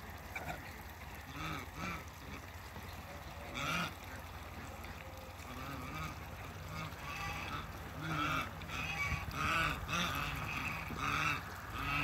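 African geese calling with short honks while they feed. The calls are scattered at first, then come about twice a second from about two-thirds of the way in.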